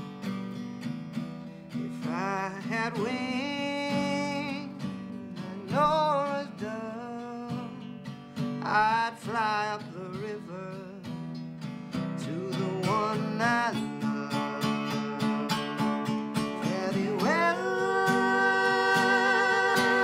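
A man singing a slow folk song to a picked archtop acoustic guitar, his voice wavering with vibrato and rising to a long held note near the end.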